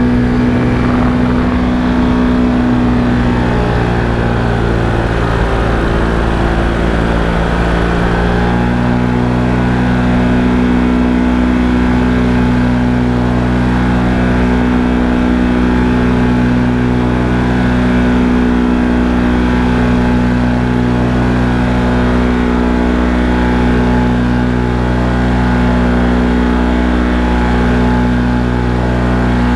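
Paramotor's two-stroke engine and propeller running steadily in flight. The engine note shifts over the first several seconds, then holds a steady pitch.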